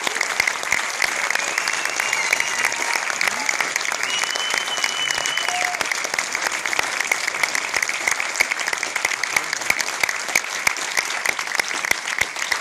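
Cinema audience applauding: dense, steady clapping from a large seated crowd.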